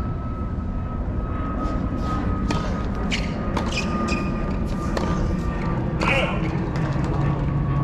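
Tennis rally: a tennis ball struck back and forth with rackets and bouncing on a hard court, heard as sharp pops about a second apart over a steady background hum.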